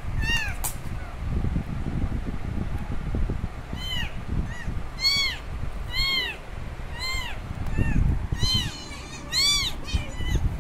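A very young kitten mewing loudly and over and over, a kitten crying for its mother. Each cry rises and falls in pitch; after one cry at the start there is a pause of a few seconds, then about eight cries come close together. A low rumbling noise runs under the cries, loudest near the end.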